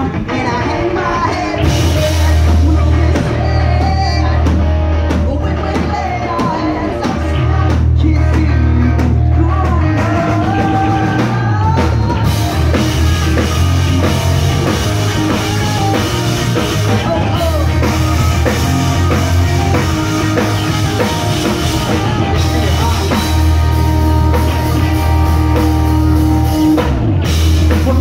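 Pop punk band playing live and loud: electric guitars, bass guitar and a drum kit under a male lead singer, heard from within the crowd.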